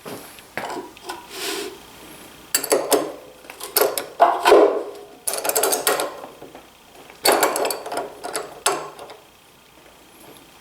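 A wrench tightening the nut on a DeWalt 735 planer's cutter head, in several short spells of rapid clicking and metal clunks as the nut is snugged up.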